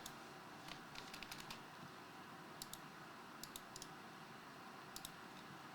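Faint computer keyboard clicks, a few keystrokes at a time in small scattered groups.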